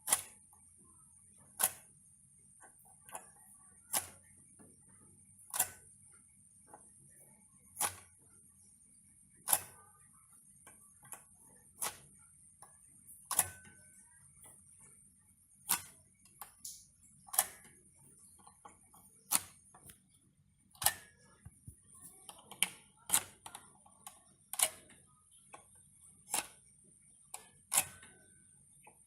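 Electrical plug pushed into and pulled out of a wall socket over and over: a sharp click every second and a half to two seconds, over a steady faint high hiss.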